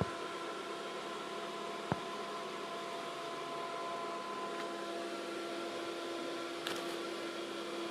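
Steady fan hum from a running desktop PC, with a few steady tones in it, broken by short sharp clicks about two seconds in and near the end.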